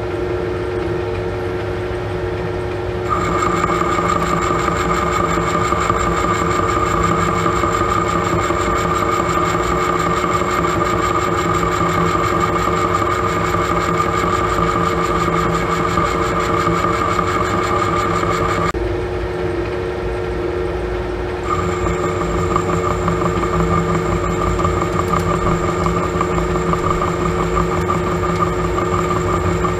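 Monarch metal lathe running with a steady hum while a carbide boring bar takes a light skim pass inside a sleeve. A higher whine sets in about three seconds in, drops out for a few seconds about two-thirds of the way through, then comes back.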